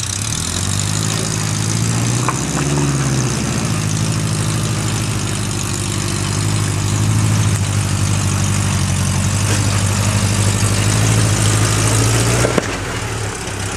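Rock crawler buggy's engine running under load as it crawls over rocks, the revs rising and falling briefly a couple of seconds in, then held steady. The engine note drops suddenly near the end.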